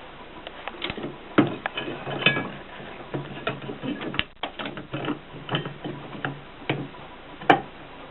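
AEG Mignon 4 index typewriter being typed on: a string of irregular, sharp mechanical clicks, about one or two a second, with lighter clatter of the mechanism between them. The loudest strike comes near the end.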